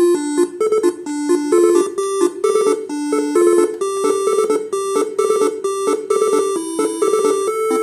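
Faniatech R3 telolet basuri horn module playing a melody: a quick, unbroken run of short, stepped horn notes, loud throughout.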